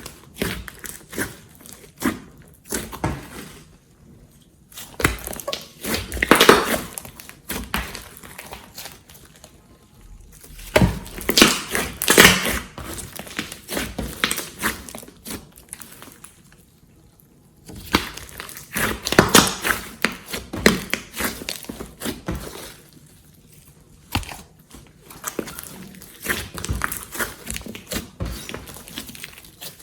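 Glossy slime being kneaded and stretched by hand, giving sticky clicks and crackles in bursts, with short quieter pauses between.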